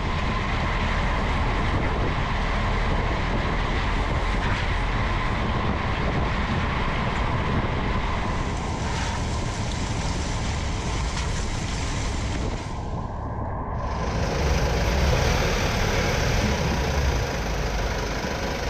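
Road noise from under a moving Mercedes Sprinter van: tyres running on wet pavement with water spray and a steady low rumble. The sound changes abruptly about two-thirds of the way through, where the view shifts from the rear axle to the front wheel.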